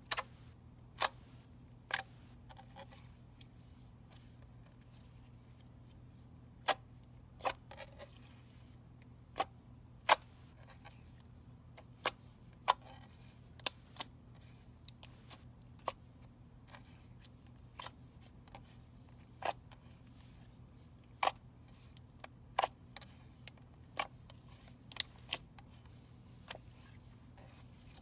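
Slime being squeezed and stretched by hand, giving off irregular sharp clicks and pops, roughly one a second, over a faint steady low hum.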